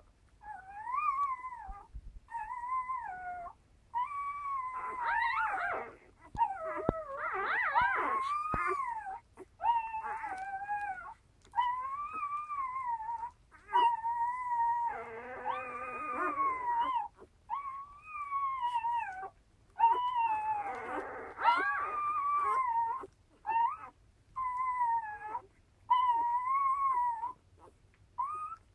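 Newborn Central Asian Shepherd puppies squealing and whining while nursing: a long series of short, high, wavering cries one after another, several at a time in places.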